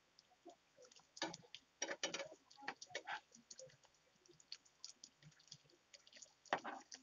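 Perforated steel skimmer clicking and scraping against a nonstick frying pan as pieces of bottle-gourd snack are turned over in hot oil, in a few scattered knocks with small crackles from the frying oil between them.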